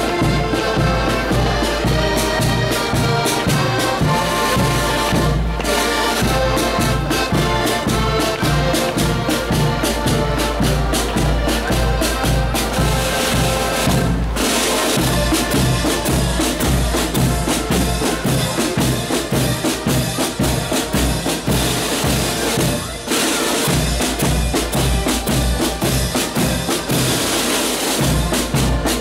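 Marching accordion band playing a tune on accordions over snare drums and a bass drum beating in march time. In the second half the drums come to the fore and the melody is less prominent.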